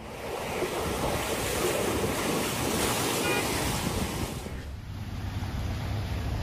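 Loud water surging and splashing, with wind buffeting the microphone. About four and a half seconds in it changes abruptly to a quieter, steady rush of floodwater.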